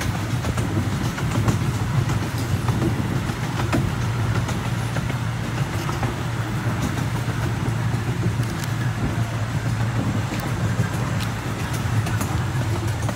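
Open passenger car of a small amusement-park train rolling along its track: a steady low rumble with scattered light clicks and knocks from the running gear.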